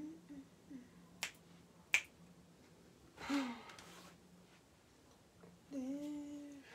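Two sharp finger snaps about a second apart, the second louder and ringing. Then a brief breathy vocal sound, and near the end a woman's held hum on one note.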